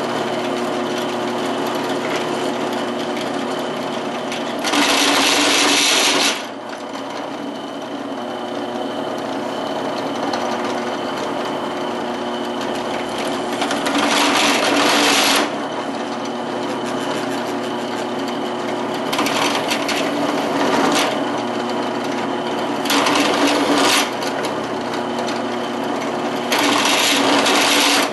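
Machine spindle running steadily with a chamfering (countersink) cutter, cutting into the steel plate five times. Each cut adds a harsh, louder cutting noise for a second or two as the cutter, which is not very sharp, clears the bottom edge of a drilled hole.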